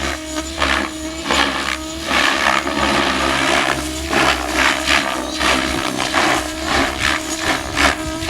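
Electric JR Vibe 90 E12 RC helicopter in flight: a steady motor and gear whine that wavers in pitch, with repeated whooshes from the rotor blades about twice a second as it manoeuvres.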